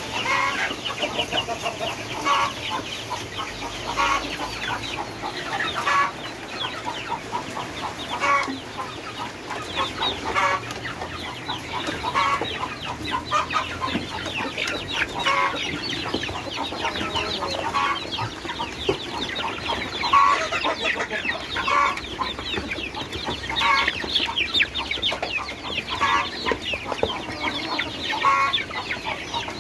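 A flock of young Indonesian native village chickens (ayam kampung) calling without pause, many high chirps and clucks overlapping, with a louder call standing out about every two seconds.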